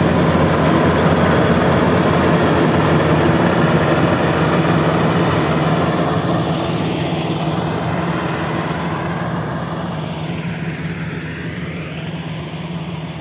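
Bimo rice combine harvester running steadily while harvesting, its engine and threshing machinery a continuous drone with a low hum, fading gradually.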